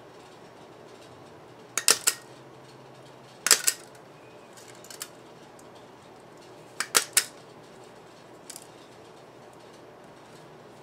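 Hand punch pliers snapping through the thin metal edge of a subwoofer voice-coil former, punching glue holes: three loud clusters of two or three sharp clicks, with a couple of fainter clicks between.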